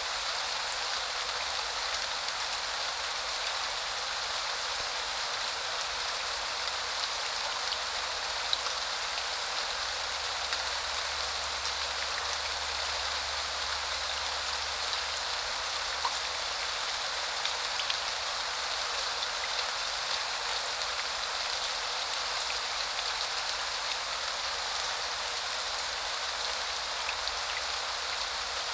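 Steady rain falling: an even hiss with scattered small ticks of individual drops landing.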